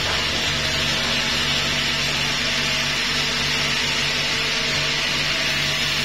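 Log sawmill running steadily: a constant motor hum under a high, even hiss.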